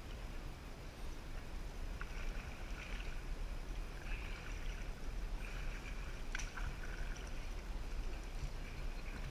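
Kayak paddles dipping and splashing in calm water with the inflatable kayaks gliding, the splashes coming and going every second or so over a steady low rumble. Two sharp knocks stand out, about two seconds in and again past the middle.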